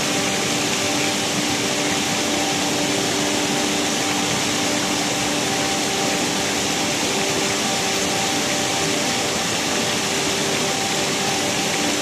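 Waterfall cascading down a rock face into a pool: a loud, steady, unbroken rush of falling water.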